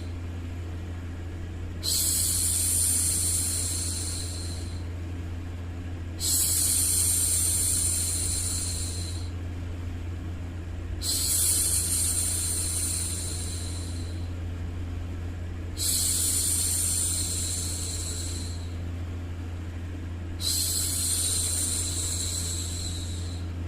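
A woman's voice shushing, a long hissing 'shhh' of about three seconds repeated five times at an even pace, roughly every four and a half seconds. A steady low white-noise hum runs underneath.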